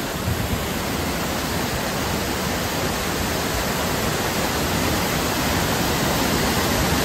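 The Yamuna river rushing: a steady, even roar of fast-flowing water that grows slightly louder.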